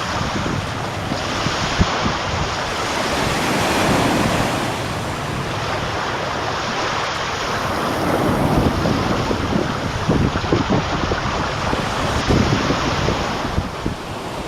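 Black Sea surf washing in, swelling and easing, with wind buffeting the microphone in low gusts.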